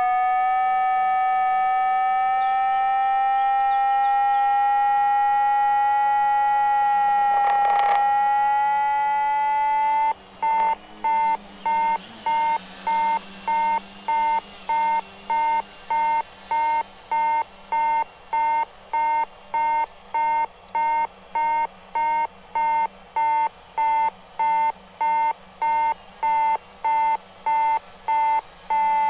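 Electronic altimeter audio tone: a continuous tone with overtones gliding slowly up in pitch, then, about ten seconds in, turning into steady beeping of the same tone at about two beeps a second.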